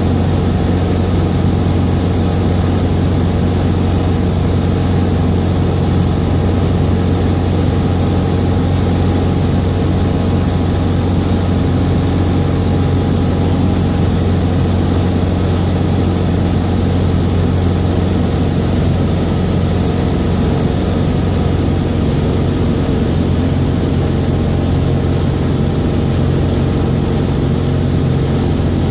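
Sonex light aircraft's engine and propeller droning steadily in level flight, heard from inside the cockpit, with a thin steady high whine above the drone.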